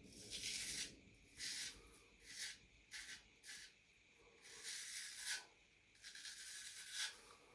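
Harlex straight razor scraping through a few days' stubble in a series of short strokes, about seven, the last two longer than the rest.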